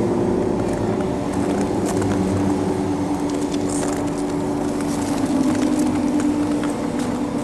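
Fire organ (pyrophone) sounding low held drone tones over a rushing roar of flame, the main tone sliding a little lower about five seconds in. Sharp crackles of burning fire come and go throughout.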